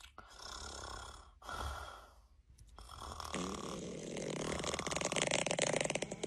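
A person snoring: two rasping breaths, then a longer buzzing, rattling snore that grows louder over the last three seconds.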